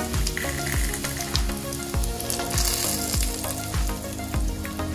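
Hot cooking oil poured from a frying pan onto garlic and chili flakes in a small bowl, sizzling as it hits them, the oil hot enough to fry the garlic and chili. Background music with a steady beat plays underneath.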